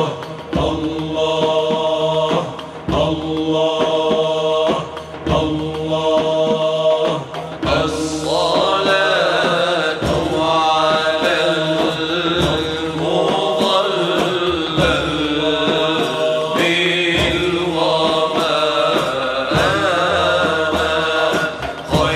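Arabic madih nasheed sung unaccompanied: a chanted line held on steady, repeated notes, then about eight seconds in a solo voice takes up an ornamented melody with wavering, bending pitch.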